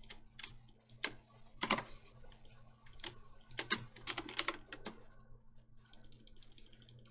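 Typing on a computer keyboard: a series of irregular key clicks, some single and some in quick runs, over a faint steady hum.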